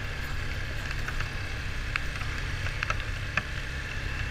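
ATV engine running steadily while riding a rough trail, with a few sharp knocks and rattles as the machine jolts over the ground.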